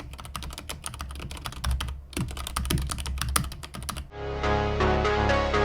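Fast typing on a Nubwo X38 mechanical keyboard with clear keycaps: a dense run of key clicks, with a short pause about two seconds in. About four seconds in, electronic music with a steady bass line takes over.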